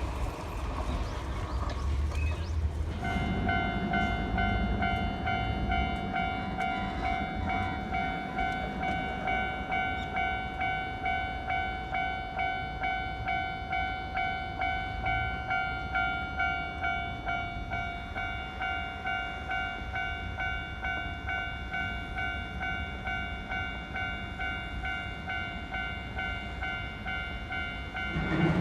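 Japanese level-crossing warning bell starts ringing about three seconds in, a quick, evenly repeating electronic ding-ding, over a low rumble.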